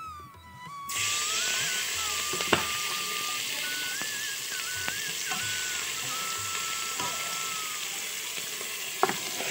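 Hot oil in an aluminium pressure cooker starts sizzling steadily about a second in as ingredients are dropped in to fry, with two sharp clicks of a utensil against the pot. A thin flute-like background melody plays over it.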